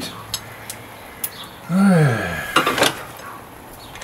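A few light metallic clicks, a brief murmur from a man's voice a little before two seconds in, then a short hiss from an aerosol spray can just before three seconds.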